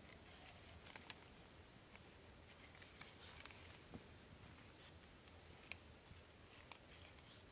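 Near silence, with a dozen or so faint, scattered light clicks and ticks.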